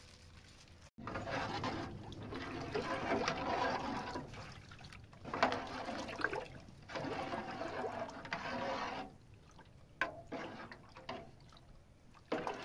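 Water pouring and splashing in spells of one to a few seconds with short breaks between, then only a couple of brief splashes after about nine seconds in.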